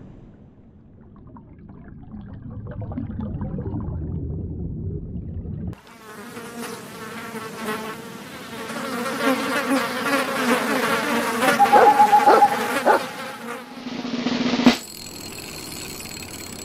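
Low rumbling noise, then, about six seconds in, a cartoon insect buzz: a bee-like drone that wavers in pitch for about nine seconds. It cuts off with a sharp click near the end, leaving a steady hum.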